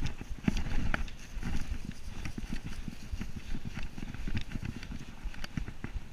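Mountain bike riding fast down a bumpy dirt and grass trail: its tyres rumble over the ground while the chain and frame rattle and knock irregularly at every bump, over a low rush of wind on the microphone.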